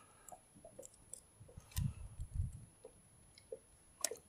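Handling noises in a rowboat while a small hooked pike is landed by hand: faint scattered clicks, two low thumps about two seconds in, and a sharp click near the end.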